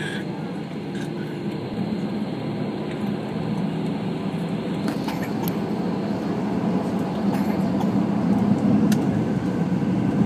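Cabin noise inside an Airbus A320-216: a steady rumble with a low hum from its CFM56 engines, growing steadily louder as the engines power up for take-off, with a few faint clicks.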